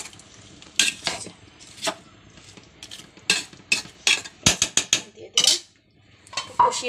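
Spoon scraping and clinking against a metal pot in irregular strokes while chicken, potato and radish are stirred and sautéed in thick spice paste.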